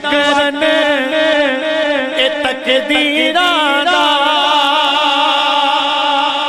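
A man's solo voice singing Punjabi devotional verse in a chanting style through a microphone and PA, with long held notes that waver in pitch.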